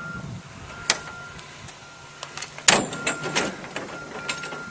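Scattered knocks and clatter, the loudest a little under three seconds in with a few more just after, over a faint steady hum.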